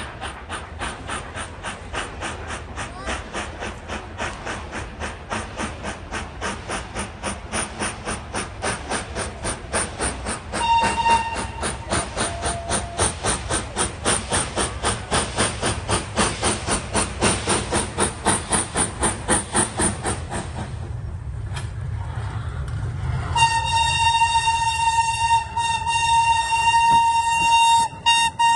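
Steam locomotive approaching, its exhaust chuffing in a steady beat of about three chuffs a second, with a short whistle blast about a third of the way in. The chuffing stops about two-thirds in, leaving a low rumble as the engine rolls on. Near the end a long, loud steam whistle blast sounds.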